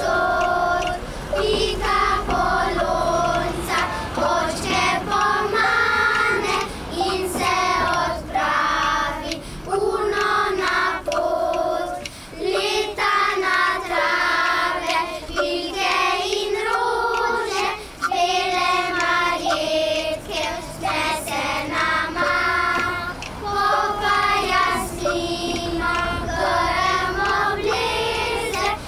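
Children's choir singing a song together, sustained sung phrases with short breaks between them.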